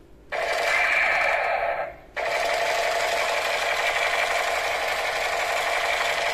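A battery toy rifle's electronic firing sound effect, a loud, even buzzing rattle. It switches on about a third of a second in, stops for a moment near the two-second mark, then starts again.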